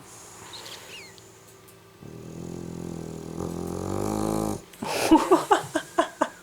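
Sleeping dog snoring: a long, low, drawn-out snore lasting about two and a half seconds, then a fast string of short sputtering sounds, several a second, for just over a second.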